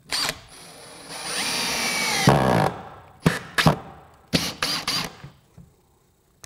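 Makita GPH01 40V XGT brushless drill-driver driving a small screw into wood. A brief blip, then about two seconds of steady running with the motor pitch dropping as the screw seats, then a string of short trigger bursts. The clutch, set at level five, does not stop the drive.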